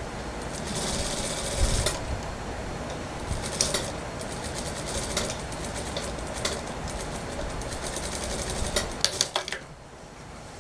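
Industrial sewing machine stitching the sleeve of a suit jacket, with a few sharp clicks just before it stops about nine and a half seconds in.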